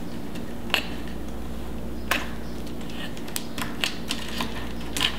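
Small sharp clicks and taps, about seven in five seconds, as quick-disconnect wire connectors are handled inside an open sheet-metal rack chassis, over a steady low hum.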